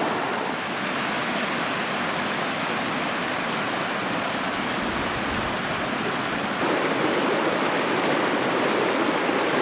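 Mountain creek water rushing and babbling over rocks in a steady wash of noise. It becomes louder and fuller about two-thirds of the way in.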